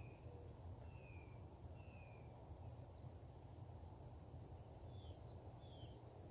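Faint birdsong: short downward-slurred whistled notes, roughly one a second, with higher twittering calls between them, over a steady low background rumble.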